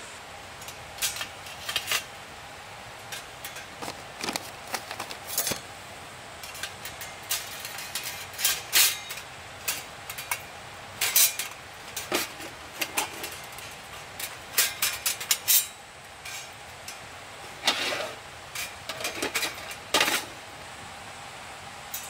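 Irregular clinks and knocks of metal camp cookware and utensils being handled, some with a short ringing tail, over a steady background hiss.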